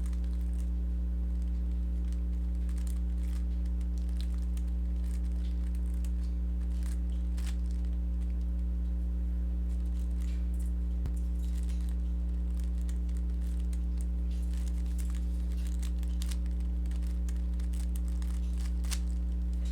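Rubik's cube being turned through algorithms: quick, irregular plastic clicks and rattles of the layers turning, over a steady low electrical hum that is the loudest sound.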